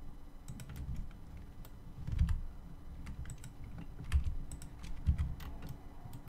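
Computer keyboard keys and mouse buttons clicking in irregular taps as modelling shortcuts are pressed, with a few duller knocks in between.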